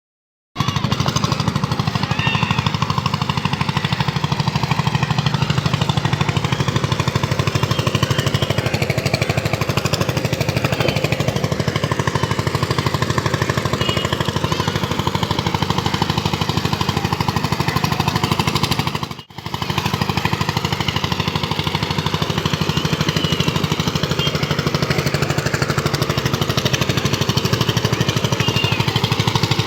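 An engine running steadily with a rapid, even pulse, with a brief dropout about nineteen seconds in.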